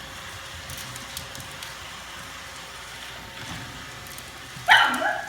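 Pug dog giving a single sharp bark, in two quick parts, near the end, over a steady faint hum.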